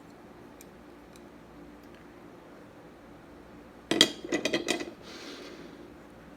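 Metal fork clinking against a ceramic soup bowl: a quick run of sharp, ringing clinks about four seconds in, after a few faint ticks.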